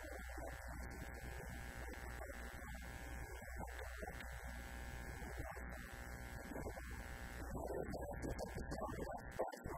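A steady electrical buzz and hum, rich in overtones, runs under a man's voice.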